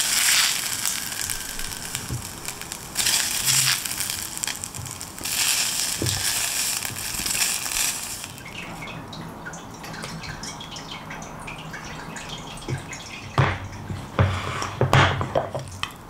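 Cooked mushroom rice, nearly scorched to a crust, scraped out of a ceramic-coated frying pan with a silicone spatula and tipped into a ceramic bowl, in several scraping rushes over the first eight seconds. After that, lighter ticks and two louder knocks near the end.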